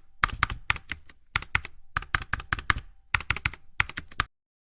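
Quick runs of sharp clicks, like typing on a keyboard, stopping abruptly about four seconds in.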